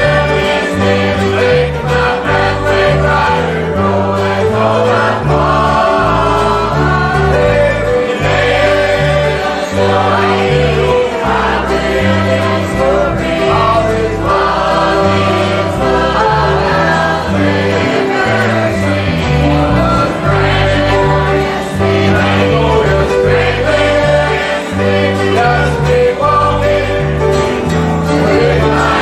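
Church choir singing a gospel hymn together, accompanied by guitars, with a bass line moving steadily underneath.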